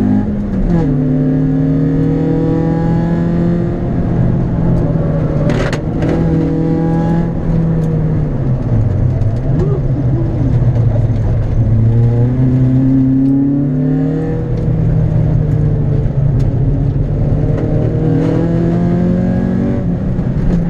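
Citroën Saxo VTS four-cylinder engine heard from inside the cabin, driven hard on a track: the engine note drops sharply about a second in as it shifts up, falls and picks up again around the middle, then climbs and drops again near the end. A brief knock sounds about six seconds in.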